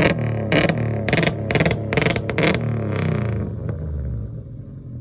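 Car engine revved in a quick series of sharp throttle blips, then dropping back to a low, steady run about three and a half seconds in.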